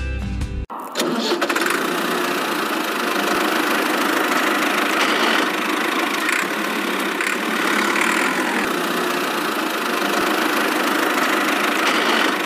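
A small motor or engine running steadily with a rough, noisy sound. It starts suddenly about a second in.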